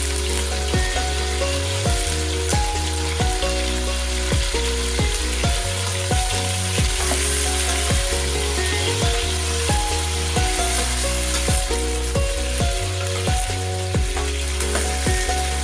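Background music with a steady beat over a continuous sizzle of chicken feet frying in a stainless pot, stirred with a ladle.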